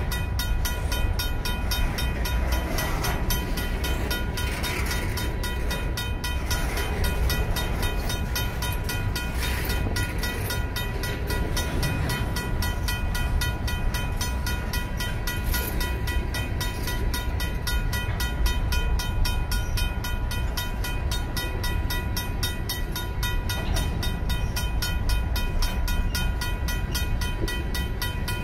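Union Pacific freight train of covered hopper cars rolling past with a steady low rumble from the wheels on the rails, while a RACO mechanical crossing bell rings with rapid, even strikes.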